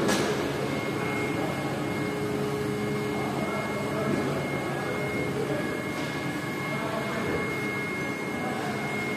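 Steady mechanical hum with a thin high whine running through it, like workshop machinery or ventilation running.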